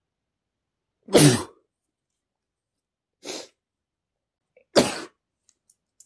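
A man with a cold sneezing three times: a loud, sharp sneeze about a second in, a softer one in the middle, and another loud one near the end.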